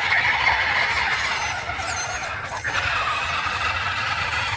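Tubular-chassis RC crawler's electric motor and drivetrain whining as it churns through muddy water, with steady splashing from the tyres.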